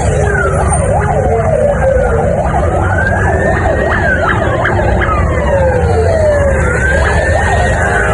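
Emergency vehicle sirens sounding together. One runs a slow wail, rising and falling over several seconds, while another runs a fast yelp of about three sweeps a second, over a low rumble of vehicle engines.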